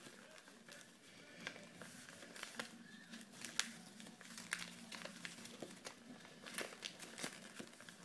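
Sheets of paper being folded and creased by hand: soft irregular crinkles and crackles, the sharpest about three and a half seconds in, over a faint steady hum.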